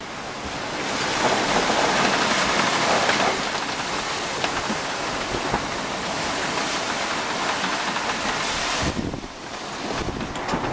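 Wind gusting over the microphone mixed with water rushing and splashing along the hull of a Bavaria 34 sailing yacht reaching at nearly 10 knots in a Force 6 wind. The noise is loudest in the first few seconds and eases briefly about nine seconds in.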